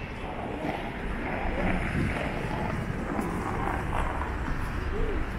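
Busy city street ambience: a steady low rumble of road traffic, with indistinct voices of passers-by.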